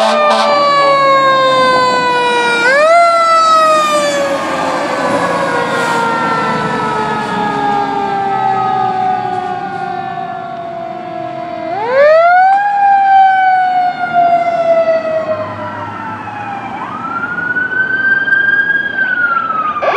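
Fire engine siren wailing: its pitch winds up sharply about three seconds in and again about twelve seconds in, each time falling slowly over several seconds, then rises once more near the end, holds and begins to fall. A truck engine rumbles underneath.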